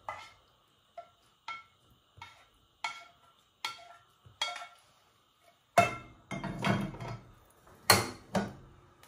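A spatula knocking and scraping against the rim of a small non-stick frying pan: about seven light knocks that ring briefly. From about six seconds in, louder clatter as the pan is moved and set down on the gas stove's metal grate.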